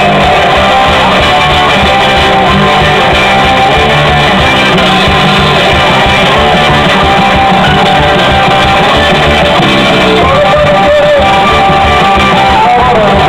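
Live band playing a mazurka with electric guitar and drums, a steady dance beat under a sustained melody line. It is loud enough to overload the recording.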